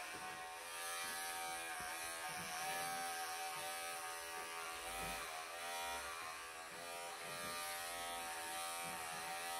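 Wahl professional electric pet clippers running, shaving a long-haired Persian cat's coat: a steady buzz that wavers slightly in pitch as the blades move through the fur.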